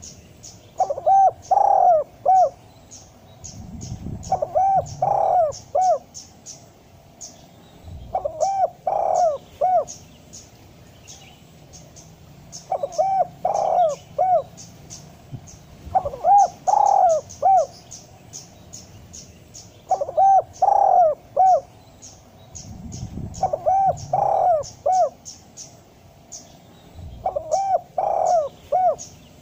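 Spotted dove cooing: its phrase of several rounded coo notes, each phrase about a second and a half long, repeated about every four seconds. This is the call used as a master recording and as a lure for wild doves.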